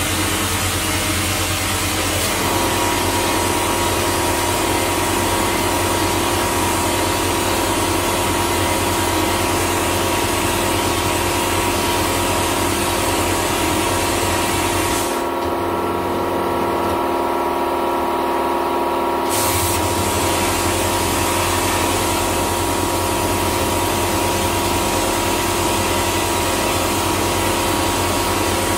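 Vapor blasting gun with a 3D-printed nozzle spraying a water and glass-bead slurry jet onto a metal part inside a blast cabinet, making a steady hiss over a steady machine hum. About fifteen seconds in the hiss cuts out for about four seconds, then resumes.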